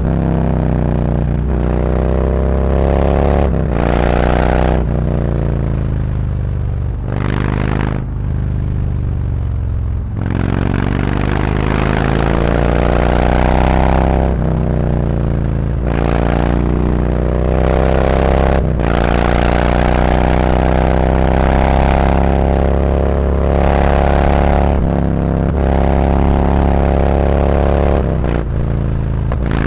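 Harley-Davidson Road Glide's V-twin engine running through SuperTrapp 4-inch slip-on mufflers with internal discs while riding. It accelerates up through the gears again and again, the pitch climbing and then dropping at each shift, with a stretch of lower, easier running about seven to ten seconds in.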